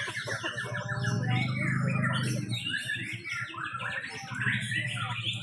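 Several white-rumped shamas (murai batu) singing at once, their rapid, varied chirps and whistles overlapping without a break, over a low steady hum.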